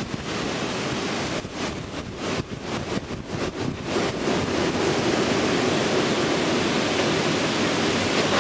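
Heavy wind noise on the microphone over the small engine of a racing lawn mower being driven. The rumble is patchy at first, then steadies and gets a little louder about four seconds in.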